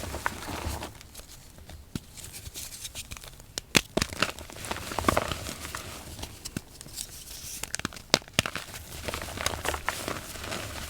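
Reformed gym chalk being crushed, crunching and crackling in irregular bursts of sharp snaps over a soft, powdery crumble, with the loudest cracks around 4, 5 and 8 seconds in.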